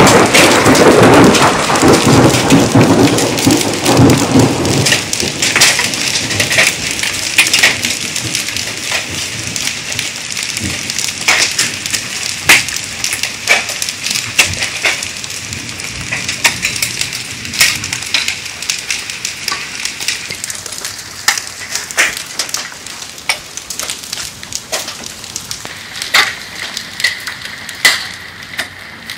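Rain with small hailstones falling, a dense, loud patter for the first few seconds that thins into scattered sharp hits and drips as the shower eases off.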